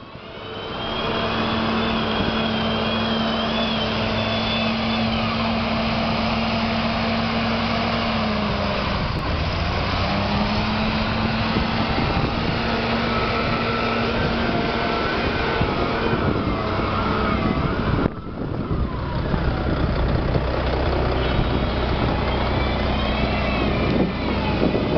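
Wheel loader's diesel engine running under load as it drives and lifts its bucket of sand, the revs dipping and rising, with a high whine that rises and falls over the engine note.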